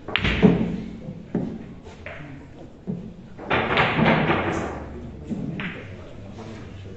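Boccette balls, thrown by hand, rolling on a billiard table and knocking against each other and the cushions: about eight sharp knocks with short ringing tails, the loudest about half a second in and another strong cluster around the middle.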